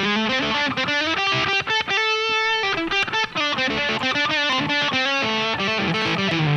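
Electric guitar run through a digital amp model with effects, playing a melodic line of changing notes with one note held about two seconds in: the playback of a saturated, processed recorded take.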